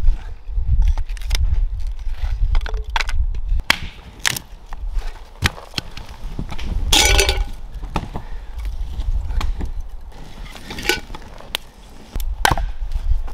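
Hatchet splitting kindling on a wooden chopping block: an irregular series of sharp chops and cracks, with split sticks knocking together as they are handled.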